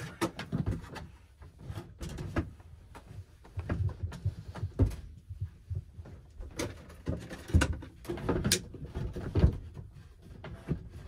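Wooden pull-out base of a vintage trailer's convertible couch being tugged and jiggled: repeated knocks, thumps and scrapes of wood on wood at irregular intervals. The frame is sticking and will not slide out, worn with age.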